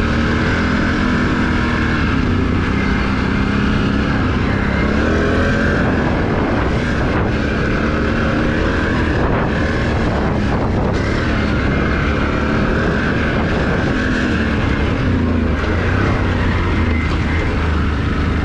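Can-Am Renegade ATV's V-twin engine running steadily while riding along a trail, its pitch wavering slightly as the throttle changes.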